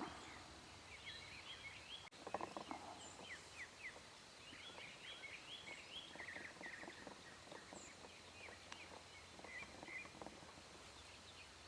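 Faint outdoor birdsong: small songbirds chirping and trilling, with a short, low rattling call about two seconds in that fits a distant wild turkey gobble.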